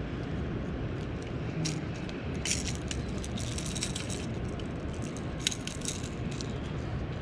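Steady low rumble of wind buffeting the microphone, with scattered light clicks and rattles.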